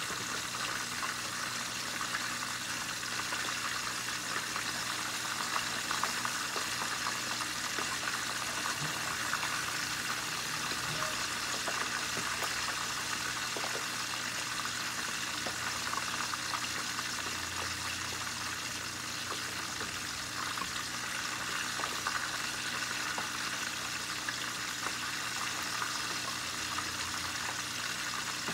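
Pork belly deep-frying in hot oil in a lidded pan: steady sizzling and bubbling with a constant crackle of small spattering pops.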